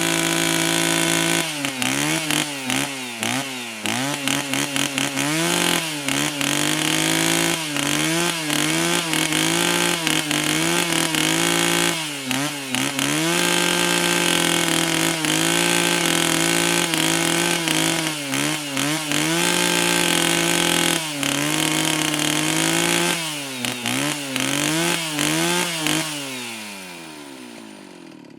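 Two-stroke chainsaw running at high revs, its pitch dipping and recovering again and again, then winding down toward idle near the end.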